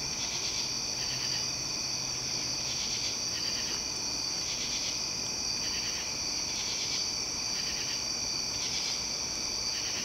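Night insect chorus: a steady high trill, with a pulsed chirping call repeating about once a second over it.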